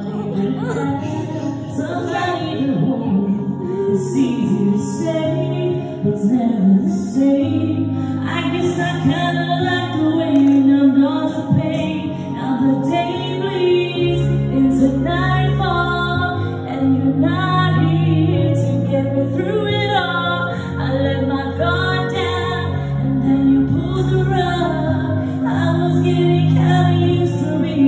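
A woman singing karaoke into a handheld microphone over a music backing track.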